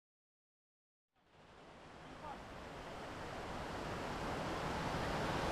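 Silence for about a second, then the steady rush of water pouring over a weir fades in and grows louder.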